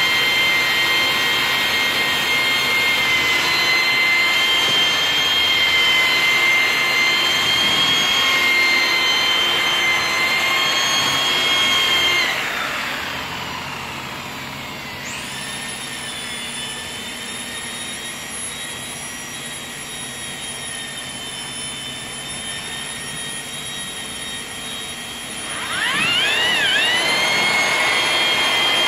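Handheld electric polisher with a round pad running with a high, steady whine as it buffs glass. About 12 seconds in the whine winds down and a quieter machine sound carries on; near the end the motor spins back up, wavering twice, and settles at full speed again.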